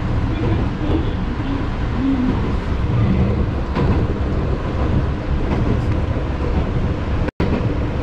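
Steady low rumble of a Matsumoto Electric Railway Kamikochi Line train running, heard from inside the car. The sound cuts out for a moment near the end.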